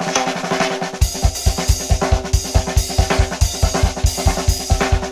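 Instrumental stretch of recorded country music with no singing: held instrument notes over quick drum hits, then about a second in a drum kit comes in with a fast, steady bass-drum and snare beat of about five strokes a second.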